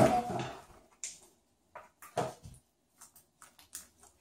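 Homemade slime being kneaded by hand and stretched in plastic bowls: scattered short sticky squelches and clicks, with a louder noisy burst at the very start.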